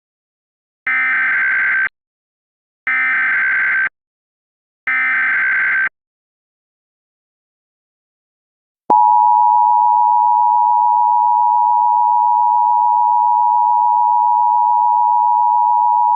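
Emergency Alert System tones: three one-second bursts of SAME header data, the digital code that carries the tornado warning, each separated by a second of silence. About nine seconds in, the steady two-tone attention signal (853 and 960 Hz) begins and holds at an even level.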